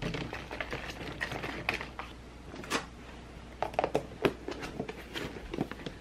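Scattered light clicks, taps and faint rustles of plastic fridge storage baskets and containers being handled as green onions are packed away. The sharpest tap comes a little under three seconds in.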